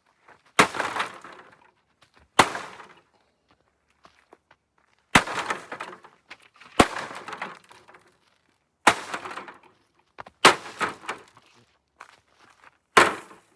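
Seven hard hammer blows on a television, each a sharp smash followed by a brief crackle and clatter of breaking pieces, spaced irregularly about one to two and a half seconds apart.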